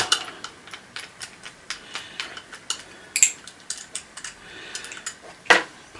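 Small irregular clicks and metallic ticks of a screwdriver working at the screws holding a part inside an old vacuum cleaner, with a sharper knock about five and a half seconds in.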